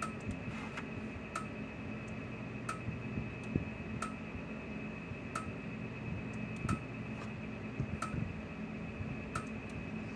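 Gallagher S200 electric fence energizer firing its pulses, a sharp tick about every 1.3 seconds, over a faint steady high whine and low hum. The even pulse rate shows the charger running normally on its replacement board.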